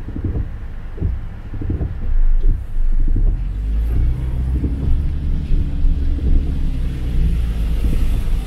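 Heavy rain drumming on a car as heard from inside the cabin, with irregular low thuds; from about four seconds in, a steady low rumble of the engine and tyres on the wet road joins as the car pulls away from a stop.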